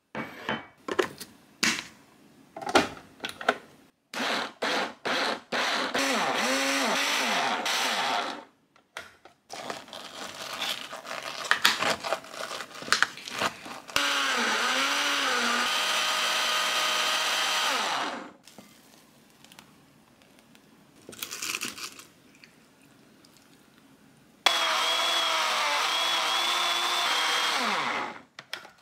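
Electric blender run three times for about four seconds each, its motor pitch wavering as it churns the contents, with knocks and clatter between the runs.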